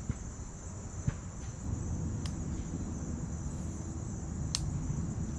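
Insects trilling steadily at a high pitch over a low rumble of wind on the microphone, with a few faint ticks.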